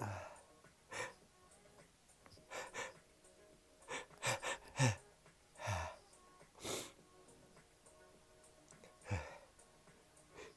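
A person breathing in short, wheezy breaths and sniffs, about a dozen in quick irregular succession. A few end in a brief low voiced catch.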